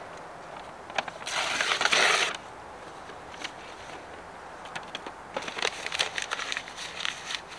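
Gear being handled: scattered sharp clicks and rattles, with a harsh scraping or rustling sound lasting about a second, starting about a second and a half in, and a quick run of clicking near the end.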